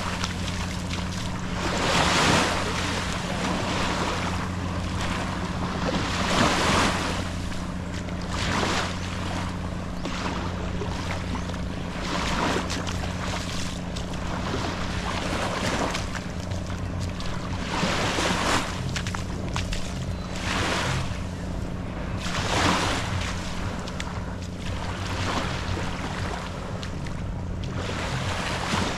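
Small waves lapping at a sandy shoreline, the wash swelling every couple of seconds. Wind buffets the microphone, and a steady low hum sits beneath.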